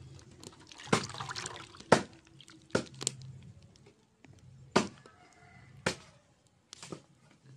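A hand swishing and squeezing flowers in a steel bowl of water, with water sloshing and dripping and several short, sharp splashes about a second apart as handfuls are lifted out.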